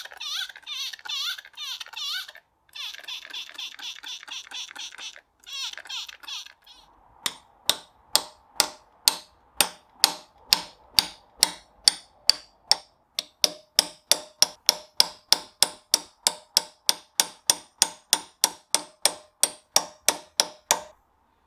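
A flat-bladed tool scraping and chipping rust off a corroded engine pulley hub in sharp metallic strokes, about three a second, over the second two-thirds. Before that comes a higher, fast-wavering scratchy noise broken by two brief cuts.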